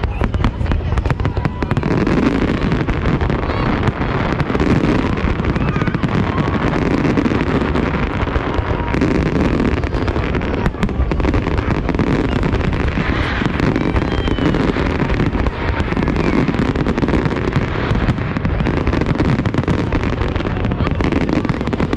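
Fireworks display going off close by: a dense, continuous barrage of bangs and crackling with no break.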